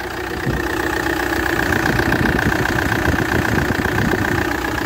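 Hyundai Terracan's 2.9 CRDi four-cylinder diesel idling steadily with an even diesel clatter, running cleanly on its freshly repaired Delphi common-rail injectors.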